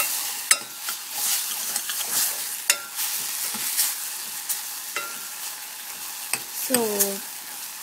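Tomato and spice masala sizzling in a stainless steel pot as a steel ladle stirs it, the ladle clinking sharply against the pot a few times.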